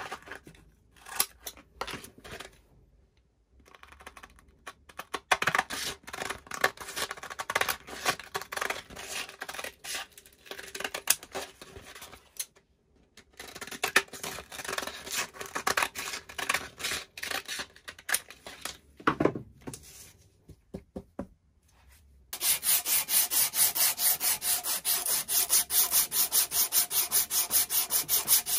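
Scissors cutting strips from a roll of P60 sanding cloth, in irregular snips and rasping cuts. About 22 seconds in, a strip of the abrasive is pulled back and forth around the steel handle of a pipe cutter held in a vise, a loud, even rasp of quick strokes.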